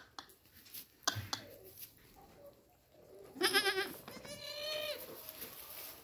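Goat kid bleating twice: first a loud, quavering bleat about three and a half seconds in, then a longer, steadier bleat right after. A few sharp taps come earlier, near the start and about a second in.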